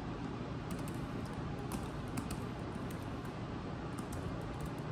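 Typing on a computer keyboard: light, irregular key clicks over a steady low room hum.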